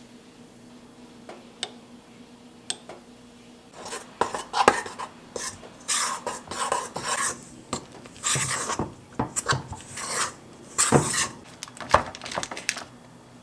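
Spoon and metal utensil clatter in kitchen bowls as bread dough ingredients are measured in: a few light clinks, then from about four seconds in a busy, irregular run of scrapes and knocks against a stainless steel mixing bowl.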